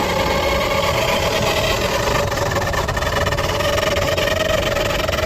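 Mercedes-Benz GLS sunroof motor and mechanism running as the sunroof opens, making a steady whine that rises slowly in pitch. It is the bad sunroof noise, which the mechanic places inside the mechanism and sets out to cure with lithium grease.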